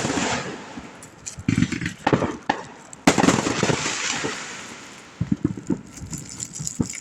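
Consumer fireworks going off: a sharp bang right at the start and another about three seconds in, each followed by a fading hiss, with smaller scattered pops in between.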